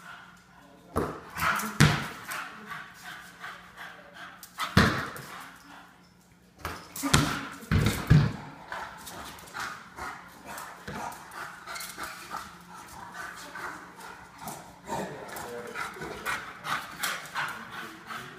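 A basketball thumping on a tile floor, a handful of loud hits in the first half, with a young English bulldog's playful barks and whimpers. Quieter, rapid clicking follows in the second half.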